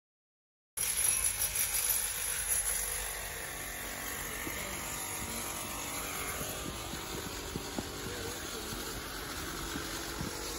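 Steady low rumble and hiss of wind on the phone microphone during an outdoor walk, starting after about a second of silence.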